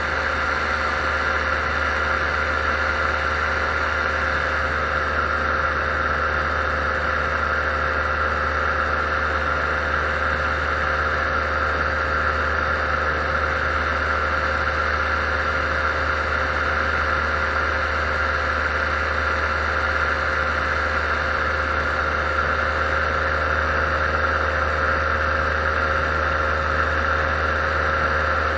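Paramotor engine and propeller running steadily at cruise power in level flight, a constant unbroken drone.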